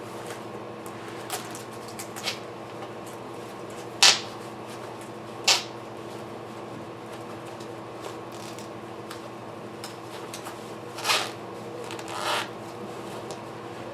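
Parts of a saucer swing being handled during assembly: scattered sharp clicks and knocks, the loudest about four seconds in and another a second and a half later, with two softer knocks near the end, over a steady low hum.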